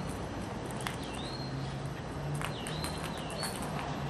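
A bird chirping a few short whistled notes that swoop down and back up in pitch, over a steady outdoor hum, with two sharp clicks about a second in and two and a half seconds in.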